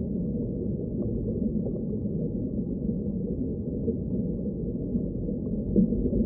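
Underwater ambience: a steady, muffled low rumble of moving water, growing a little louder near the end.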